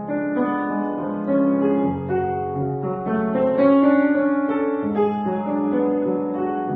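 Piano playing a slow melody over held chords.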